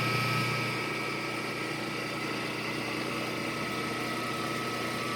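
Victor lathe running steadily: an even machine hum with a constant high whine.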